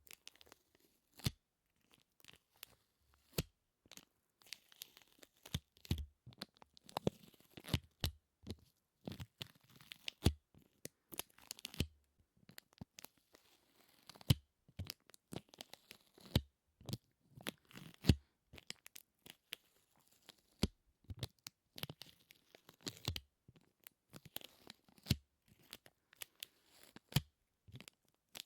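Close-miked ASMR sticky sounds: something tacky being pressed and pulled apart, giving irregular sticky peeling crackles and sharp clicks, several a second.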